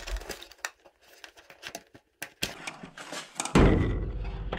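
Plastic wire-harness connectors on a dryer's front panel being worked apart by hand: scattered small clicks and rattles, then a loud thump with a low rumble about three and a half seconds in.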